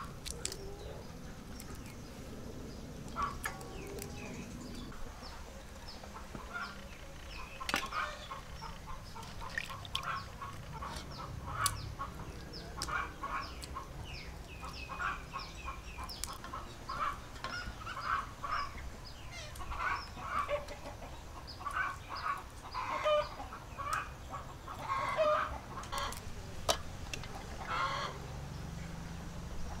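Chickens clucking, with many short calls through the whole stretch and a few sharp clicks among them.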